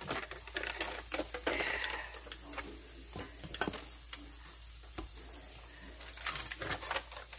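A hand rubbing and smearing soft fat around the bottom of an enamel baking dish to grease it: soft rubbing with scattered light clicks, busier at the start and again near the end.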